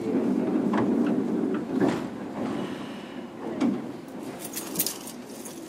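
Onboard running noise inside a JR Kyushu 103 series 1500 electric train car: a low rumble dying down, with several sharp knocks and clicks.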